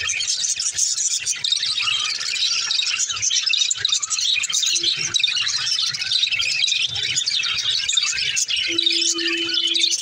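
Budgerigars chirping and warbling, many short notes overlapping without a break, from several birds at once. A steady low hum joins in near the end.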